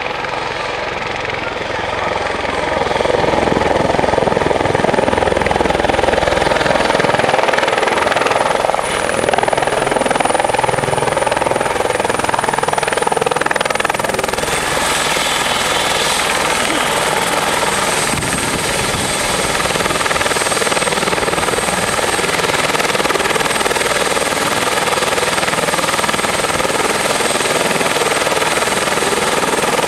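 Light helicopter coming in to land, its rotor and engine noise growing louder over the first three seconds. About halfway through, once it is on the ground, the high engine whine drops slightly in pitch, and it then runs on steadily with the rotors turning.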